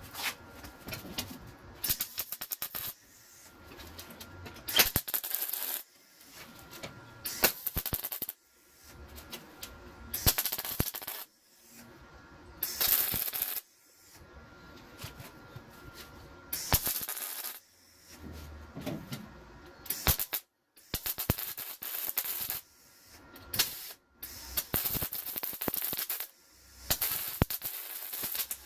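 Welder crackling in short bursts of about a second each with brief pauses between, stitch-welding thin sheet steel in a near butt weld.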